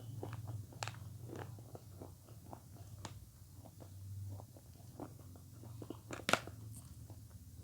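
Close-miked mouth sounds of avocado being bitten and chewed: scattered soft clicks and smacks, with one sharper bite about six seconds in, over a steady low hum.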